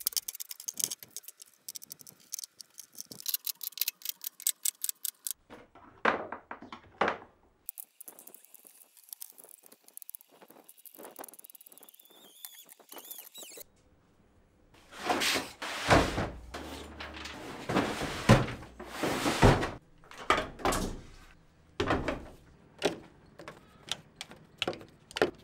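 Metal hand tools being laid out and hung on hooks on a plywood tool wall. First comes a quick run of light metal clicks and clinks. Later there are separate louder knocks and thunks.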